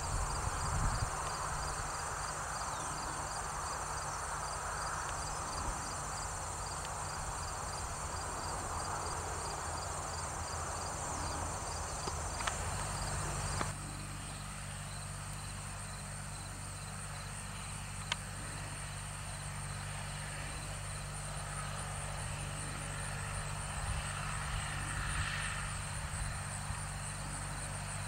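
A John Deere 5403 tractor's three-cylinder diesel engine running at a steady low drone while it pulls a hay side rake, with insects chirping in a steady repeating rhythm over it.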